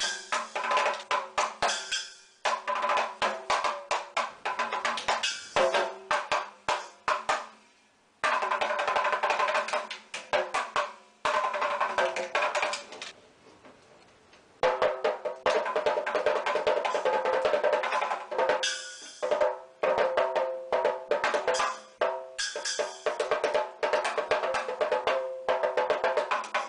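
Mini desktop drum set played with sticks: fast beats and rolls on small ringing drums, with a small cymbal hit a few times in the second half. The playing stops briefly about eight seconds in and again around thirteen seconds in.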